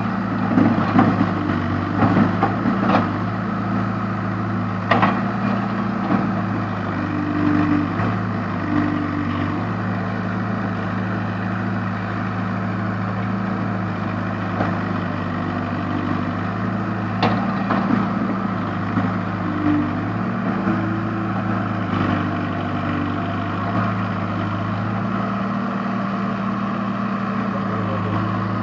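Case backhoe loader's diesel engine running steadily while it digs, with a few sharp knocks in the first five seconds and one more near the middle.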